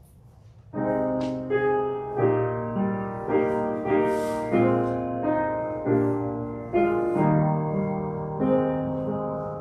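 Piano playing a slow succession of chords, each struck and left to fade, starting about a second in.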